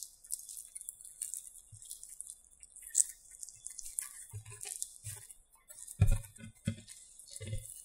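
Hands rolling a sheet of dough strewn with chopped green onions into a log and rolling it on a cutting board: soft rustling and crackling of dough and scallions, with a few dull thumps of palms on the board near the end.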